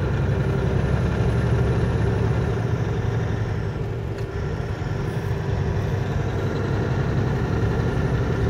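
Semi truck driving at a steady speed on a snowy road, heard from inside the cab: a steady low engine drone with tyre and road noise. A faint click about four seconds in.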